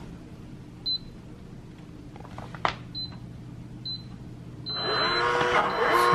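Schlage Connect touchscreen deadbolt keypad beeping as its code is keyed in: short high beeps about a second apart and one sharp click, then a longer beep near the end. A louder sound with several steady tones follows straight after the last beep.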